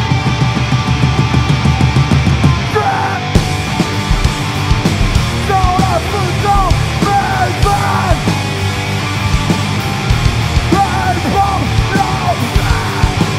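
Screamo band playing live: distorted electric guitars, bass and drums, with screamed vocals. Cymbals come crashing in about three seconds in.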